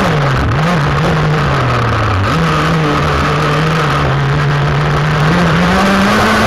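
K&B 7.5cc glow outboard engine on a Prater Lap Cat model racing boat running flat out, with spray and hull noise from the water. Its pitch dips over the first two seconds, then jumps back, holds steady and climbs near the end.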